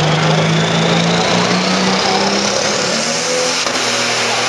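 Pro stock pulling tractor's turbocharged diesel engine running hard under load, with a high turbo whine that rises steadily in pitch.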